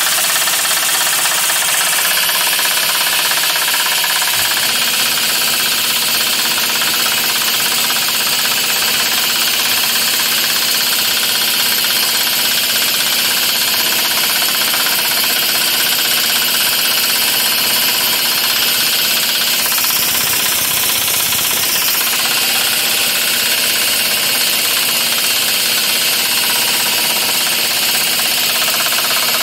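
Pneumatic impact wrench hammering steadily on a ball joint press screw, forcing out a seized original ball joint that has been heated to free it.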